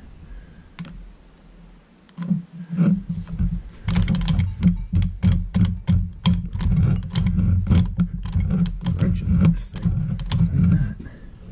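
Milling machine quill being worked down and up to drive a keyway cutter through a steel bore, shaping an internal keyway stroke by stroke: a rapid run of metallic clicks and scrapes, about three a second, starting about four seconds in, over a low rumble.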